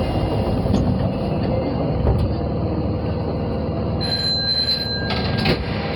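Osaka Metro 22 series subway train running at speed, a steady rumble of wheels on rail. A thin high wheel squeal rises over it about four seconds in, and a few sharp clicks come near the end.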